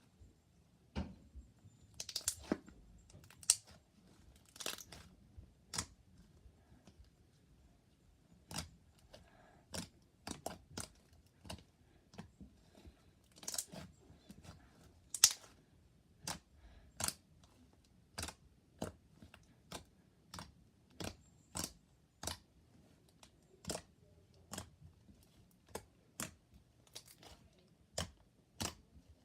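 Thick slime being squeezed and poked by hand, giving sharp clicks and bubble pops at an irregular pace of about one or two a second.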